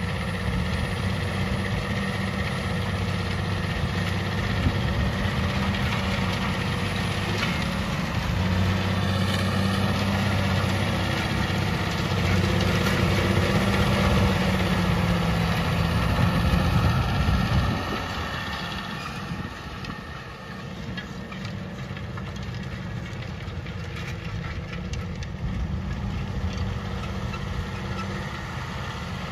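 John Deere tractor's six-cylinder diesel engine running steadily under load. About two-thirds of the way through it gets quieter and its steady note turns into a rougher drone.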